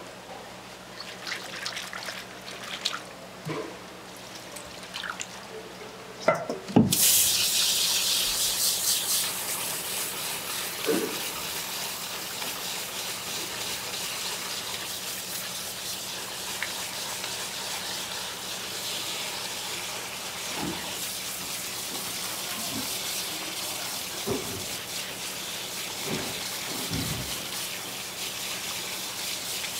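Water splashing as gloved hands work sea squirt pieces in a bowl, then a tap turned on about seven seconds in, running steadily over the pieces in a plastic basket as they are rinsed by hand.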